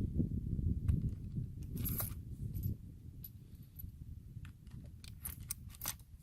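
Brass .45 Colt cartridges being pushed one by one through the loading gate of a Winchester Model 1873 lever-action rifle's tube magazine: a string of sharp metallic clicks, with a low rumble during the first three seconds.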